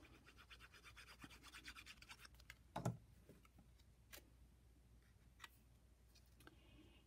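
Faint quick scratching as the sponge tip of a bottle of Tombow multi-purpose liquid glue is rubbed over the back of a small paper square. A single light knock comes just under three seconds in, followed by a few soft ticks as the paper is handled.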